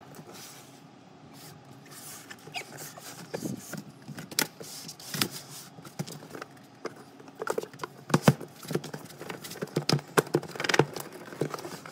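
Hands handling a cardboard product box: irregular taps, scrapes and rubs of paperboard as the outer sleeve is slid off and the inner box is worked at, busier and louder in the second half.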